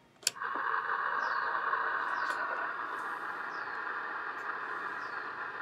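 Radio receiver static: a click about a quarter second in, then a steady hiss through a small speaker, with a few faint ticks.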